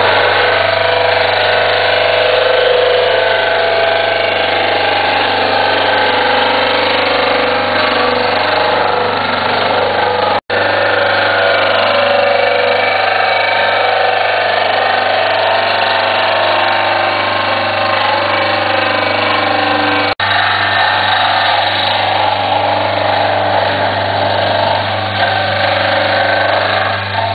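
RJH Gerbil vacuum form trimmer running, its spinning tungsten carbide disc cutting a straight edge in a plastic vacuum forming: a steady motor hum under a continuous loud grinding rasp. The sound drops out for an instant twice.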